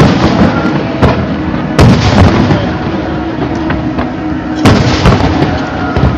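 Aerial fireworks bursting, with a dense, continuous rumble of shell explosions and several sharp, loud bangs, the strongest about two seconds in and again near five seconds.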